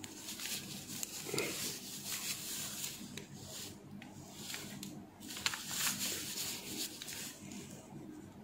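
Faint scraping and rubbing as a soldering iron tip works at solder lodged inside a desoldering gun's glass collection chamber, with the cloth around the chamber rustling and a few light clicks partway through.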